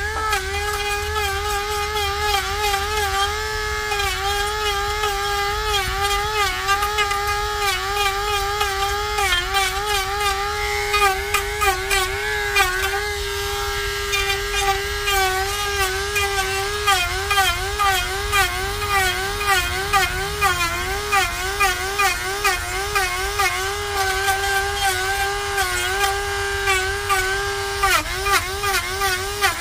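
Dremel 4300 rotary tool with a small three-cutter carving bit running at high speed and cutting into Western red cedar. It makes a steady whine whose pitch dips and wobbles again and again as the cutter bites into the wood and frees up.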